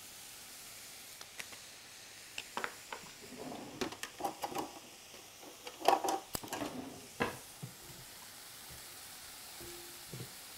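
Chopped vegetables sautéing in oil in a frying pan, a faint steady sizzle. Over it come a run of light clicks and clatters from kitchen utensils being handled, loudest about six seconds in.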